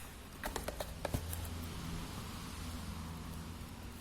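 A cardboard parcel box being handled as it is opened: a few light taps and clicks, then faint rustling over a low steady hum.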